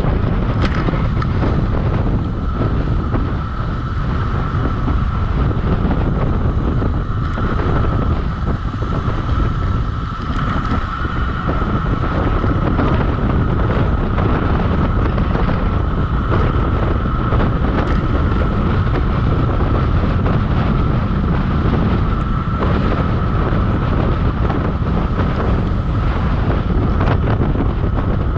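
Wind buffeting the microphone of a bicycle descending fast, with a steady high whine.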